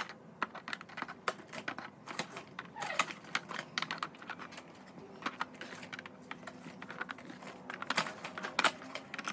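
Quick, irregular clicks and light knocks of containers and packaging being handled and set down while restocking a fridge.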